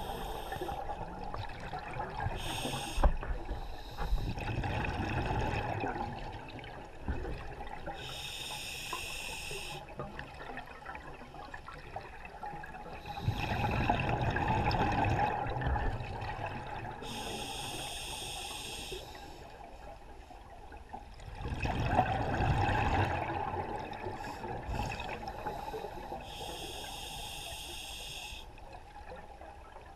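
Scuba diver breathing underwater through a regulator: slow breaths, each a short hissing inhale followed a few seconds later by a louder rush of exhaled bubbles, about three breaths in all.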